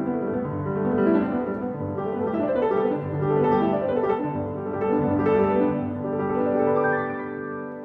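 Background piano music: a melody of changing notes over held low notes, getting a little quieter near the end.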